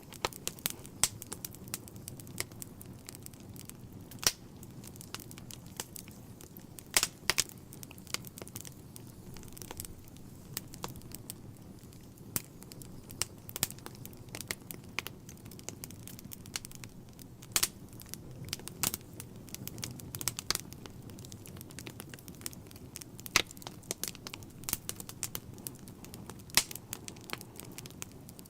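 Wood fire burning in a fireplace: irregular sharp crackles and pops of varying loudness over a low, steady rumble.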